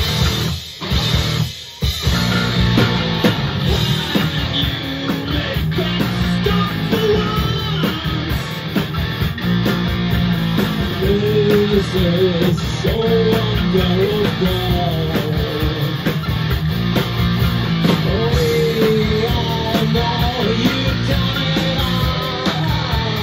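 Live rock band playing: electric guitars and drums, with a man singing over them from about six seconds in. The band drops out briefly twice about a second in.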